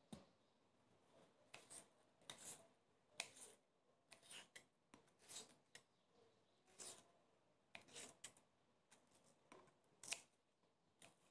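Kitchen knife slicing through stacked lettuce leaves onto a bamboo cutting board: about a dozen short cuts, unevenly spaced, roughly one a second.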